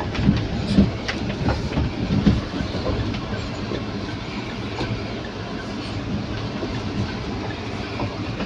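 Mahindra Thar 4x4 crawling over rocks: a steady low rumble of engine and tyres with irregular knocks and clatter as the wheels and suspension jolt over stones, the sharpest knocks in the first couple of seconds.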